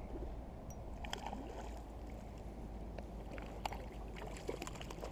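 A spinning rod and reel being handled at the water's edge while a small trout is brought in on the line: scattered small clicks and ticks over a steady low rumble.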